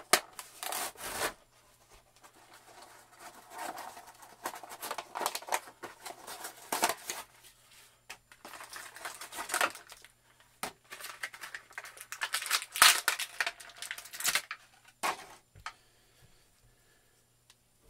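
Action figure box being torn open by hand: cardboard tearing and plastic packaging crinkling in irregular spells that stop near the end.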